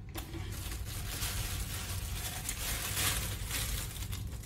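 Clear plastic takeaway food container being handled, its thin plastic crinkling and rustling unevenly for several seconds, over a steady low hum.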